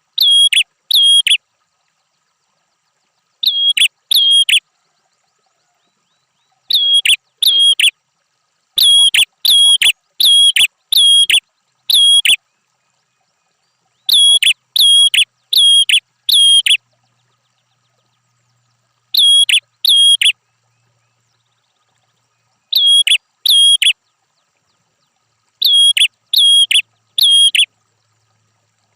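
Prinia (prenjak) calling: loud, sharp, high notes repeated about twice a second in bursts of two to six, with silent pauses between bursts.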